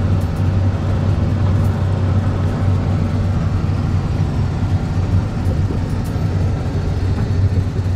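Steady road and engine noise heard inside a pickup truck's cab at highway speed: a constant low hum under an even rush of tyre and wind noise.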